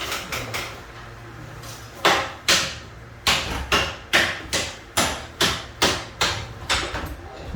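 A hammer striking repeatedly during tile repair work: a few light knocks, then from about two seconds in a steady run of a dozen or so sharp blows, about two a second.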